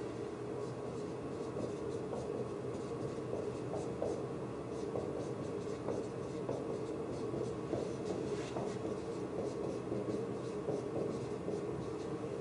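Dry-erase marker writing on a whiteboard: a run of short marker strokes, over a steady background hum.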